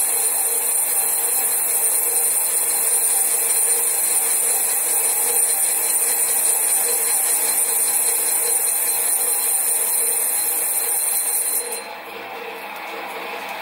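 Sieg SC4 lathe running at about 300 RPM with a steady motor hum while the tool takes a light finishing cut on a cast-iron flywheel, giving a steady high hiss. The hiss stops abruptly about twelve seconds in and the sound drops, leaving the lathe running.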